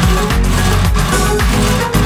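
Background music with a steady beat.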